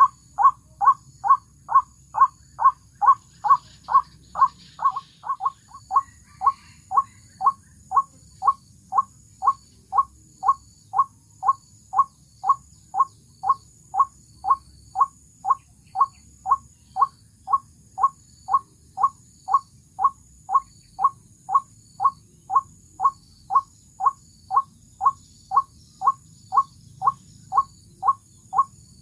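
White-breasted waterhen's 'kwak' call repeated evenly, about two short calls a second, the kind of call used as a lure to trap ruak-ruak.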